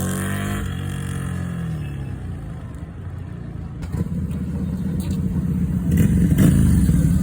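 FKM Victorino 250i motorcycle engine through its stock exhaust: the revs fall away after a blip and settle low. From about four seconds in, the engine builds again to a louder, rougher rumble.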